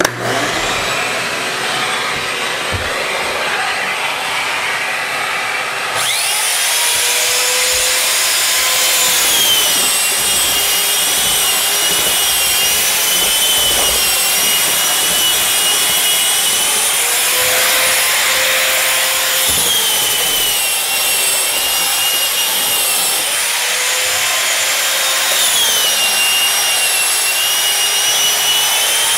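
Power drywall sander running on dried joint compound, hooked up to a Ridgid shop-vac, the pad rubbing over the wall. Its motor whine dips in pitch and recovers several times, and the sound turns abruptly brighter about six seconds in.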